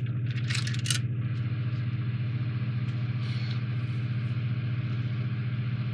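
A steady low machine hum, like a small motor running, throughout. In the first second a few light plastic clicks come from the model kit's parts trees being handled.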